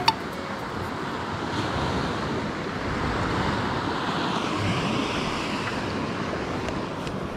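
Sea surf breaking and washing up a sand beach, with wind buffeting the microphone. The wash swells a little about halfway through.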